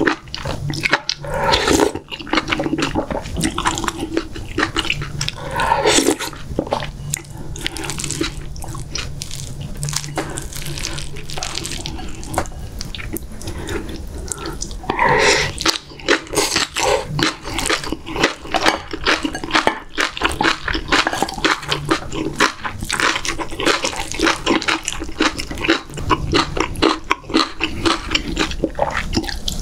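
Close-miked eating sounds: a person slurping hot stew broth from a spoon and chewing wet, crunchy food with a constant quick smacking and crackle. A few longer slurps stand out near the start, around six seconds in and around fifteen seconds in.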